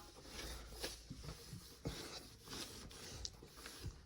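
Faint rubbing and swishing of a cleaning cloth wiped over a windowsill, with a few light knocks.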